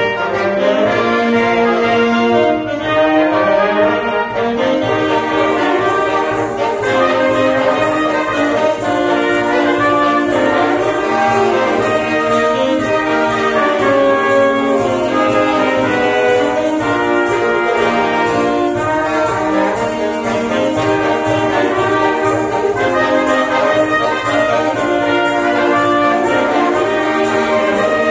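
Wind ensemble of saxophones and brass playing a hymn in full harmony, with sustained chords that move at a steady, moderate pace.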